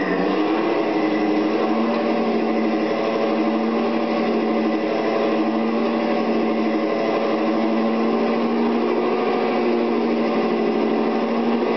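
Napier Baby Deltic, a turbocharged nine-cylinder opposed-piston two-stroke diesel, running steadily at constant speed with an even, pitched engine note.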